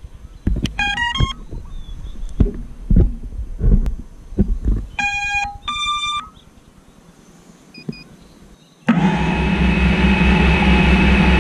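FPV racing quadcopter powering up: a few knocks and a quick rising run of electronic beeps, then two longer beep chords a few seconds later, typical of the speed controllers' start-up and arming tones. About nine seconds in, the motors start all at once and the propellers spin at idle with a steady buzzing hum.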